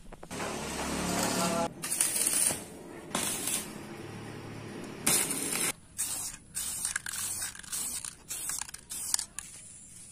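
Aerosol spray-paint can hissing in a series of short bursts as black paint is sprayed onto a steel engine-mount bracket. The bursts get shorter and closer together towards the end.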